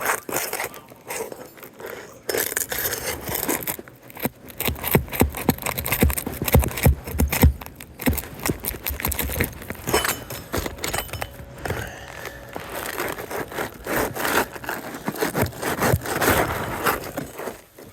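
The last nail being pried out of a shingle and the shingle worked free and slid out: irregular scraping and rubbing of shingle against shingle, broken by clicks and knocks, with a run of heavier thumps about midway.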